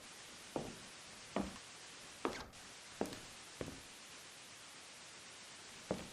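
Faint knocks, about one every three-quarters of a second, with a pause of about two seconds in the middle, over a low hiss.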